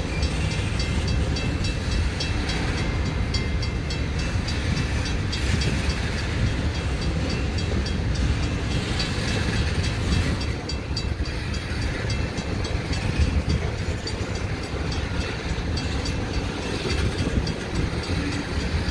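Freight train of covered hopper cars rolling past: a steady low rumble of steel wheels on the rails, with light clicking on top.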